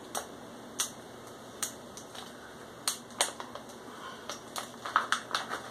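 Plastic snack packet crackling and clicking in the hands as it is worked open after a cut too close to the seal failed to open it: a few separate crisp clicks, then a quicker run of crackles near the end.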